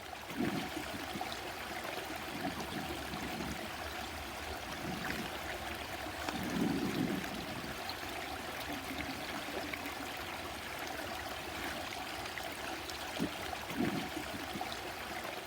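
Small stream flowing steadily, an even babbling rush of water, with a few brief lower swells in the sound.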